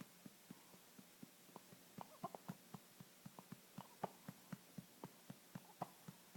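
A baby's faint hiccups, each with a small squeak, coming every second or two amid a run of quick soft clicks.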